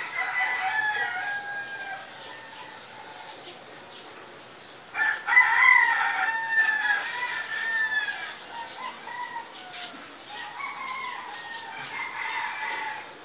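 A rooster crowing three times: long calls that fall in pitch, the loudest about five seconds in.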